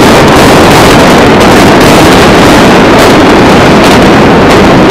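Building collapsing in a demolition: a loud, steady rumbling roar that overloads the recording to distortion, cutting off abruptly near the end.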